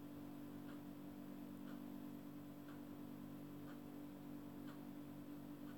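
Faint soft ticks, about one a second, over a low steady hum.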